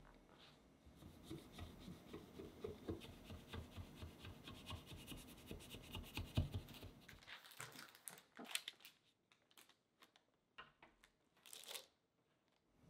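Knife blade scraping around the inside edge of a metal baking sheet to loosen a baked sponge cake, a dense run of small scratches and clicks. About eight seconds in it gives way to a few sharp crinkles of parchment paper as the sheet is turned out onto a wire cooling rack.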